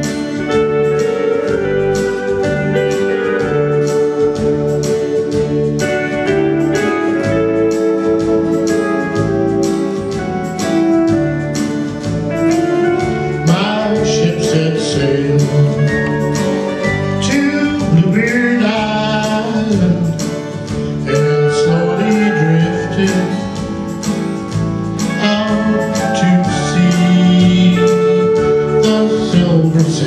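Live dance music led by a Yamaha electronic keyboard playing a tune over a steady beat, with a voice singing over it in the middle and again near the end.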